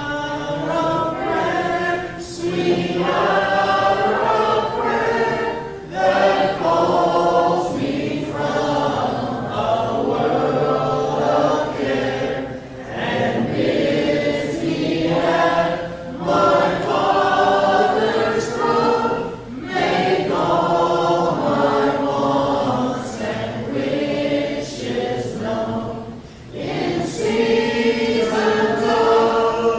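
Church congregation singing a hymn unaccompanied, many voices together, in phrases with short breaks for breath every few seconds.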